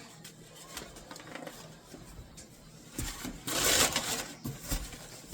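Packaging being handled and opened by hand: scattered clicks and rustling, then a loud rip lasting about half a second, about three and a half seconds in.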